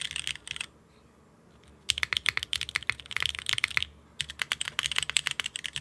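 Typing on a Neo65 mechanical keyboard with tactile switches. There are three quick bursts of keystrokes, each clacking fast, with pauses of about a second between them.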